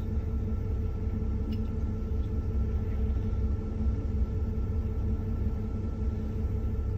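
Boat engine idling: a steady low rumble with a constant hum.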